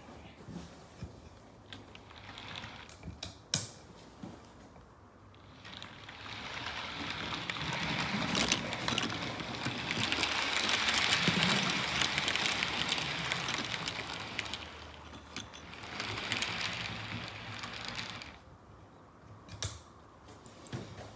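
Carriage-washing plant scrubbing a train as it passes through: a rushing, swishing wash of brushes and spray that builds up, holds for several seconds in the middle and dies away, with scattered clicks and knocks before and after.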